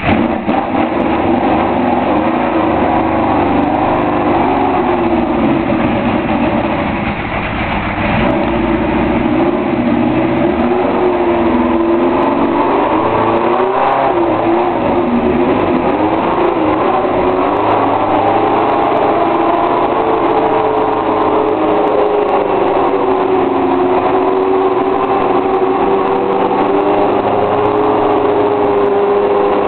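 Fittipaldi FD-01 Formula 1 car's Cosworth DFV V8 running just after being fired up, unsteady, its pitch wavering, with a few short rises and falls in revs around the middle.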